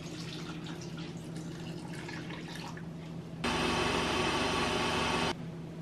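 Water poured from a pot into a blender jar of teff, then a countertop blender motor runs steadily for about two seconds, blending the teff and water for injera batter, and cuts off suddenly.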